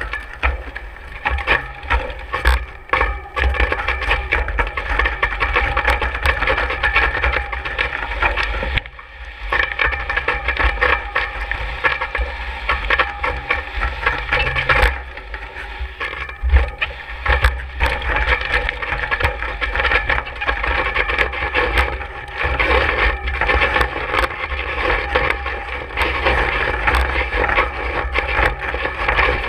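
Road bike rattling and crunching over rough dirt and packed icy snow, heard through the bike-mounted camera: a continuous clatter of small knocks and scrapes, briefly quieter about nine seconds in.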